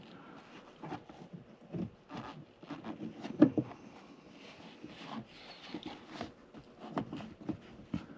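Irregular light clicks, taps and knocks of hand work on a car's wiper arm and its mounting, with one louder knock about three and a half seconds in.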